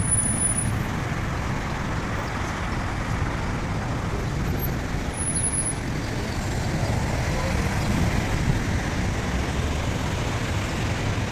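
Steady road-traffic noise in heavy rain, an even low noise with no distinct events.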